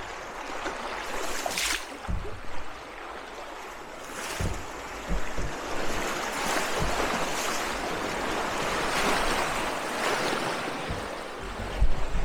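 Rushing whitewater of a river rapid around a canoe, a steady rush that swells in the middle, with occasional low thumps.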